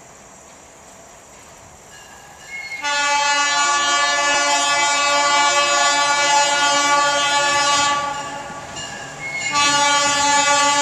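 Diesel locomotive's air horn sounding a chord of several notes: one long blast starting about three seconds in and lasting about five seconds, then a brief break and a second long blast starting near the end. Before the horn, a faint steady high drone.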